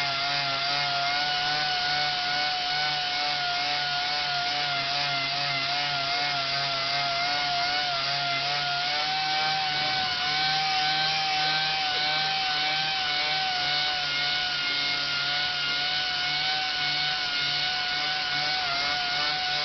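Random orbital (DA) sander running steadily against a Corian solid-surface countertop, sanding out a scratch. Its motor whine holds one pitch that wavers slightly, over the rubbing of the pad on the surface.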